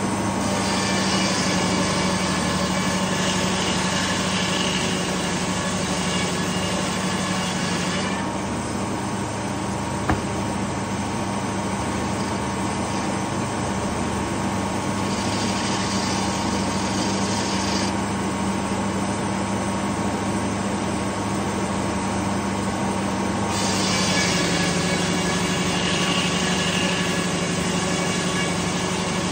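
A two-stroke Detroit Diesel engine runs steadily, driving a large circular sawmill blade through a pine log. The high, hissing noise of the cut comes and goes several times over the engine's drone, and the engine's pitch drops slightly as it takes the load late on.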